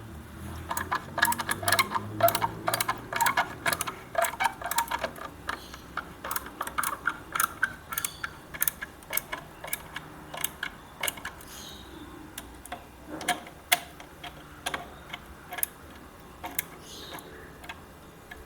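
Screws being turned by hand with a screwdriver into wall plugs: a run of quick clicks and ticks, thick and fast for the first few seconds, then sparser.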